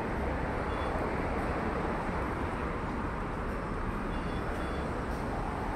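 Busy city street ambience: a steady hum of road traffic with a low rumble.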